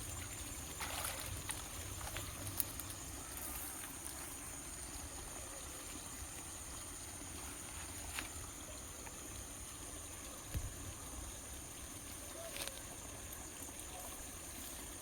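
Faint, steady trickle of flowing canal water, with a few soft knocks.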